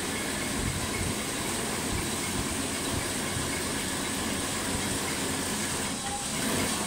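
Biscuit packing line running: conveyor and packing machine making a steady mechanical hum and hiss with a faint high whine.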